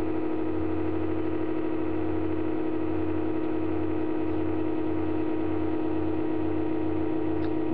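A laptop buzzing with a steady pitched drone and a low throb pulsing about twice a second underneath, which the owner puts down to a faulty cooling fan that cleaning out the dust did not cure.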